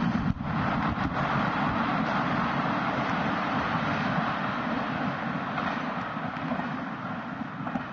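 Container freight wagons' steel wheels running over the rails as the tail of the train rolls away: a steady rumble that slowly fades. There are a couple of sharp clacks in the first second.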